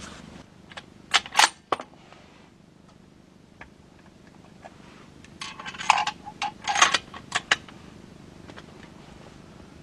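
Sharp metallic clicks and clacks from a bolt-action rifle being handled: a few about a second in, then a denser run of louder clacks from about five and a half to seven and a half seconds in.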